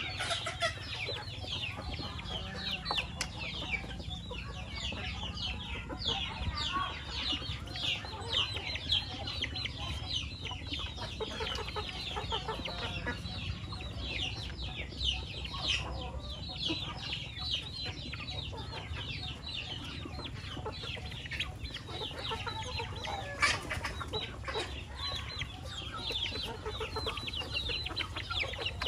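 A flock of chickens clucking continuously, with many short, high calls overlapping throughout.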